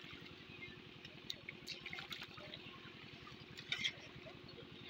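Faint small splashes and trickles of shallow, muddy pond water, a few short ones spread through and a small cluster near the end, over a steady low rhythmic drone.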